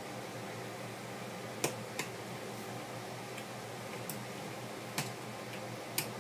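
Four light, sharp clicks, two close together about a second and a half in and two more near the end: a small screwdriver and tiny parts being handled on a cell phone's plastic housing during disassembly. A steady low hum runs underneath.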